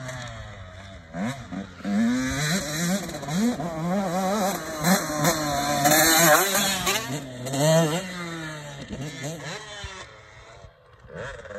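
Motocross dirt bike engine revving up and down over and over as it is ridden round the track, loudest as it passes close about six seconds in, then fading as the bike rides away.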